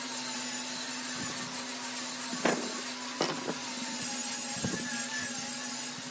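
A small electric power tool running steadily on wood, with a few sharp knocks in the middle.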